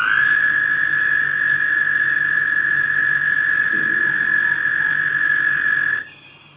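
A frog calling: one long, steady, high trill that cuts off suddenly about six seconds in.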